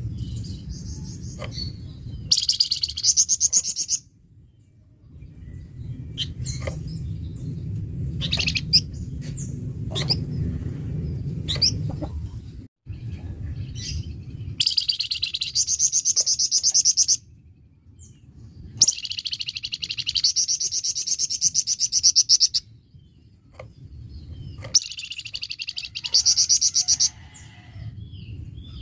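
Songbird known in Indonesian bird-keeping as a flamboyan, singing hard and harsh ('gacor kasar'): four loud, fast rattling song phrases of two to four seconds each, with short high chirps between them, over a low background rumble.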